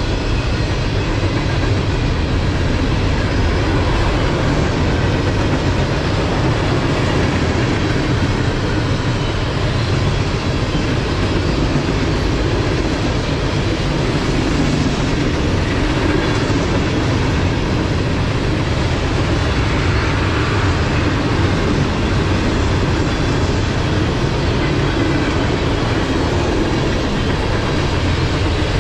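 Mixed freight train of boxcars, tank cars and covered hoppers rolling past: a steady, low rumble of steel wheels on rail.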